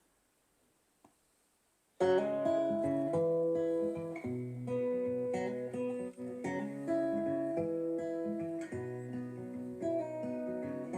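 About two seconds of near silence between tracks, then acoustic guitar music starts, plucked and strummed, played back through a Tribit Stormbox Lava portable Bluetooth speaker during a sound test.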